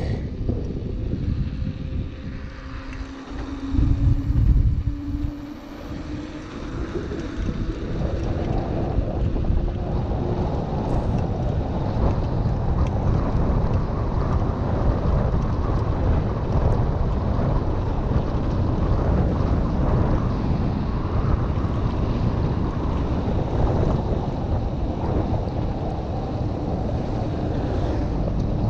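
Wind buffeting the microphone of a handlebar-mounted action camera on a bicycle coasting downhill, over a steady hiss of tyres on wet asphalt. There is a stronger gust about four seconds in.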